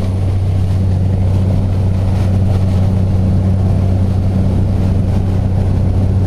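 Propeller airplane engine running with a steady, unchanging low drone and a rush of air noise.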